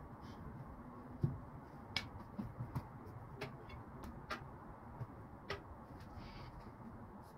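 About ten light, irregular clicks and taps over a low steady hum. The loudest is a duller knock about a second in.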